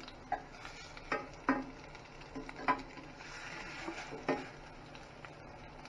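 A metal slotted spoon knocking and scraping against a stainless steel frying pan, about five light clinks, over faint sizzling of fish patties frying in oil.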